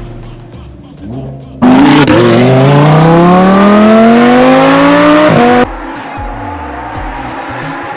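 Lamborghini Huracán Spyder V10 with a titanium exhaust, accelerating hard: a loud engine note that cuts in suddenly and climbs steadily in pitch for about four seconds, then drops abruptly to a quieter steady running sound.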